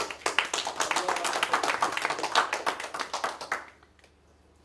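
Audience applauding with many quick, overlapping claps, dying away about three and a half seconds in.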